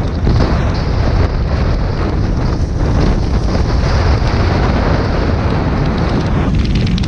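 Wind rushing and buffeting the microphone of a snowboarder riding fast downhill, with the hiss of the snowboard's edge scraping through the snow as he carves turns.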